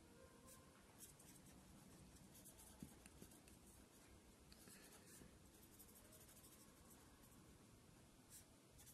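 Faint scratching of a felt-tip sketch pen colouring in on paper, in short strokes.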